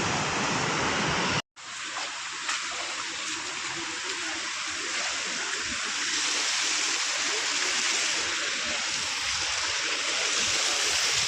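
Floodwater rushing in a steady, loud torrent. The sound cuts out for a moment about a second and a half in, then comes back a little quieter.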